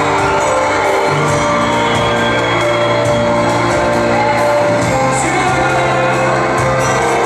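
Music with singing: a loud, dense mix of sustained notes that change every half second or so.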